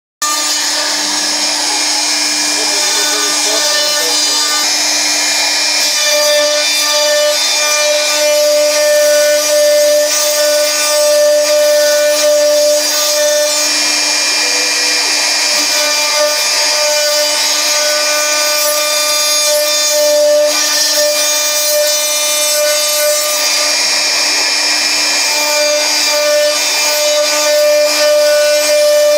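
Homemade CNC router spindle whining steadily as its end mill cuts into a wooden board, over a dense hissing, rasping cutting noise. A higher tone comes in about six seconds in and drops out twice for a few seconds as the cut goes on.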